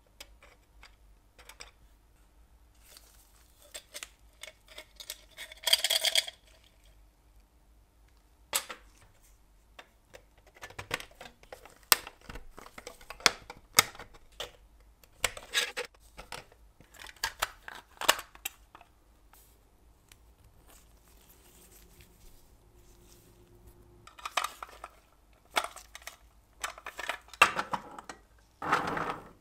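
Small metal clicks, taps and scrapes as the sheet-metal tender of a Bing toy steam locomotive is handled and fitted together with tweezers, irregularly spaced, with a short sliding scrape near the end.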